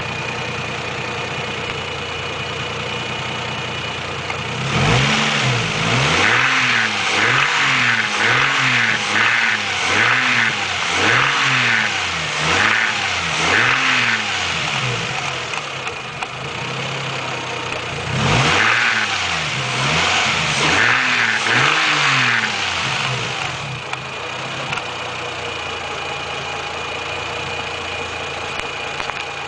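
Car engine idling, then blipped repeatedly, about one quick rev a second. Two runs of revs about ten seconds and five seconds long, with idle between and after, and a hissing band that pulses with each rev. This is a noise the owner calls weird.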